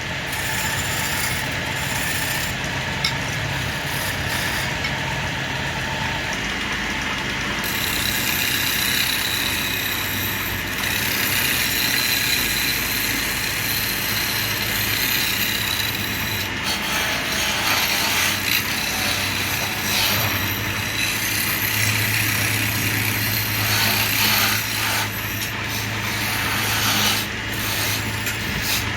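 Wood lathe running with a steady motor hum while a chisel scrapes and cuts the spinning wood.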